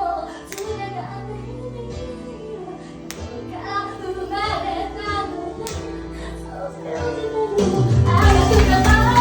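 Japanese idol pop song performed live: a female voice singing over a softer backing, then the full band with a heavy, regular bass beat comes in near the end and the music gets louder.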